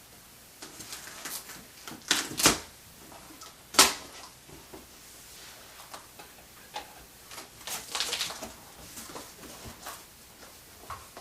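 Large cardboard box and its packing being opened and handled: irregular knocks, scrapes and rustles, the loudest two sharp knocks about two seconds in and again a second and a half later.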